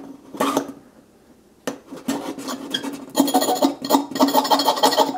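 A knife blade scraping along the aluminium side frame of a Samsung Galaxy S6 Edge, scratching marks into the metal: a few short strokes, then from about two seconds in a fast, continuous run of scrapes.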